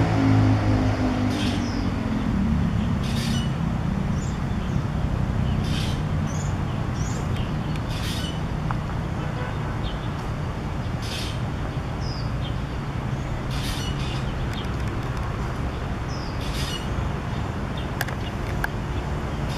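Black drongo calling: short, high, harsh calls and quick slurred notes repeated every second or two. A steady low traffic rumble runs underneath, with a passing vehicle's engine falling in pitch over the first few seconds.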